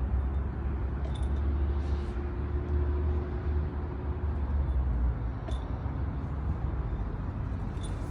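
Steady low outdoor rumble with a few short, high bird chirps scattered through it, about one, two, five and a half and eight seconds in.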